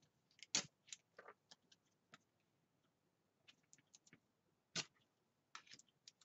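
Faint, scattered clicks and scrapes of a plastic card being pressed and drawn over washi tape on a paper planner page, with two sharper clicks, one soon after the start and one about five seconds in.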